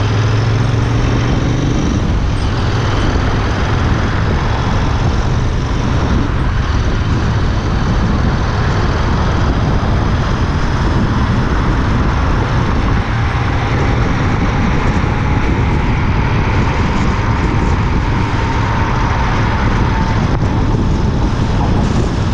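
Royal Enfield Interceptor 650's parallel-twin engine running while riding, under steady wind and road noise. A faint whine slowly rises in pitch in the second half.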